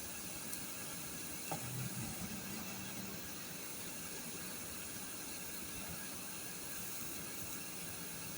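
Steady faint hiss. About one and a half seconds in there is a small click, followed by a few soft low knocks.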